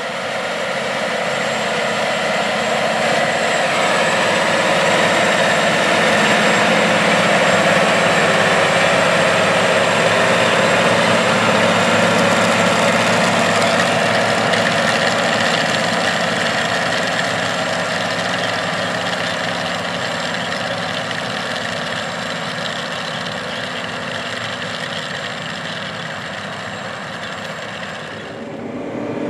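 John Deere 9470RX four-track tractor's 13.5-litre diesel engine running steadily under load as it pulls a strip-till bar through the field. It grows louder over the first several seconds, then slowly fades.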